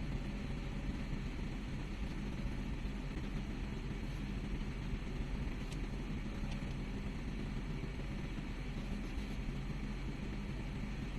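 Excavator engine running steadily with an even hum, with a couple of faint clicks partway through.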